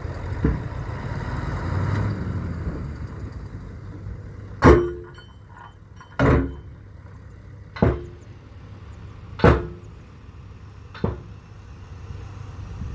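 Heavy construction machinery engine running, with five loud, sharp metallic bangs evenly spaced about a second and a half apart, each ringing briefly.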